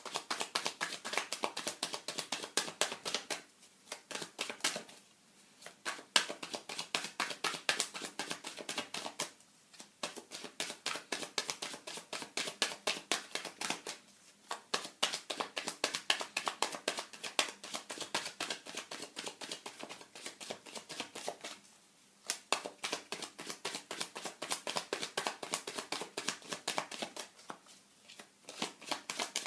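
A deck of tarot cards being shuffled by hand: a fast run of light clicks and flicks, many a second, stopping briefly every few seconds.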